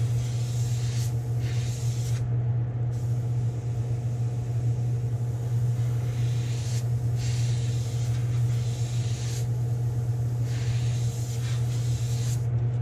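Gravity-feed airbrush hissing as it sprays paint at low pressure, in several passes of a few seconds each with brief pauses between. Under it runs a steady low machine hum.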